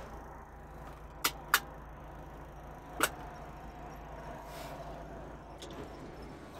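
Three sharp clicks from the climate-control buttons of a Daewoo Winstorm being pressed, over the steady low hum of its idling engine.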